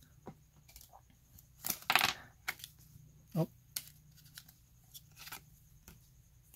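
Pokémon trading cards being handled: cards flicked through in the hand and set down on a wooden table, making scattered light taps and paper rustles, with one louder swish about two seconds in.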